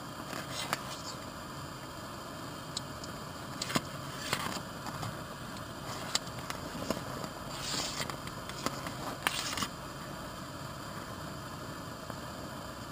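Scattered light knocks and clicks and a few brief rustles of gear being handled, over a steady low hiss.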